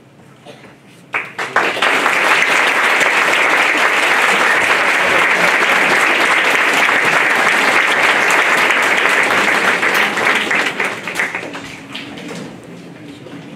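Audience applauding, starting about a second in, holding loud and steady, then dying away near the end.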